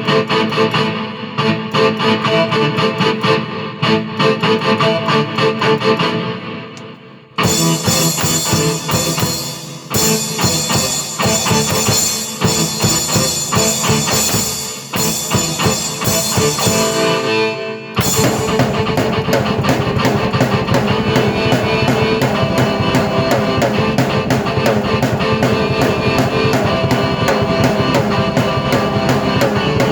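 Drum kit and keyboard played together in a loud rock piece. The music shifts abruptly to a new section about seven seconds in and again at about 18 seconds, after which a dense, steady beat runs on.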